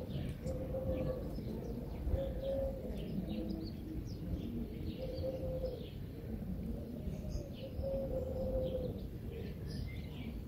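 A dove cooing, a low note repeated every two or three seconds, with small birds chirping and twittering at a higher pitch.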